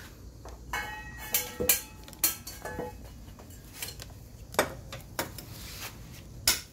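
Steel wrench clinking on a scooter engine's oil drain bolt as it is loosened for an oil change: a series of sharp metallic clinks, several with a short ring, bunched in the first three seconds and a few more later.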